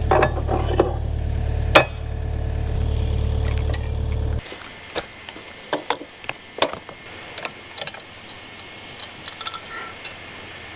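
Kubota U55-4 mini excavator's diesel engine idling steadily, with a sharp click near two seconds in, then shut off abruptly about four seconds in. After that come scattered light metallic clicks and clinks.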